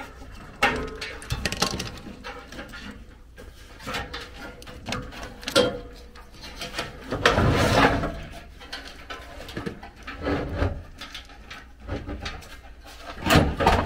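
Hands working furnace wiring and parts: wire bundles and plastic connectors rustling and clicking as the control board is lifted and the sheet-metal blower housing is shifted. A louder low, muffled sound comes about halfway through.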